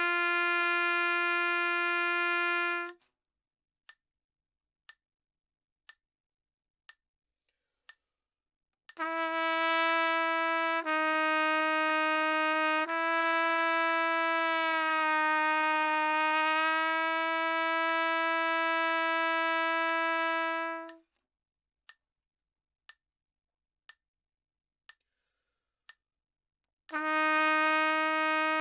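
Trumpet playing a note-bending exercise: long held notes, one bent down about a semitone and back up, then a slower dip and return, in phrases several seconds long. In the rests between phrases, soft clicks tick about once a second.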